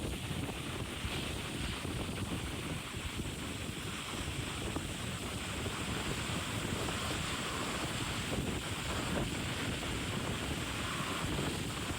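Wind buffeting the microphone over the steady rush of open-ocean water past a moving yacht, an even noise without breaks.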